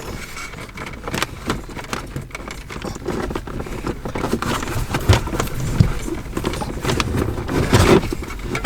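Handling noise of a microphone cable being fed behind plastic dashboard trim: irregular rustling, scraping, clicks and a few dull knocks.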